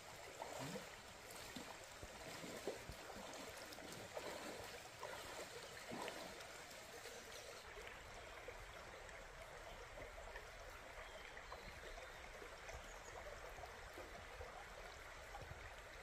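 Faint, steady rushing of a mountain stream flowing through a gorge.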